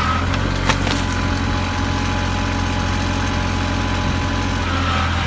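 Challenger compact tractor engine running steadily while its front-end loader works loose debris, with one sharp click about a second in.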